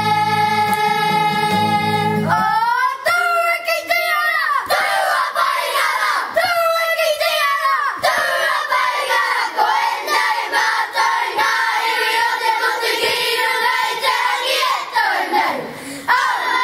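A group of children singing together; for the first couple of seconds a held instrumental chord with deep notes sounds under them, then stops and the voices carry on alone. Just before the end the singing drops away and a sudden loud burst of voices starts.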